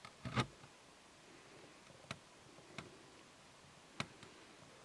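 A few isolated knocks and clicks over a quiet background: a soft double knock with a low thump a fraction of a second in, then single sharp clicks about two, three and four seconds in.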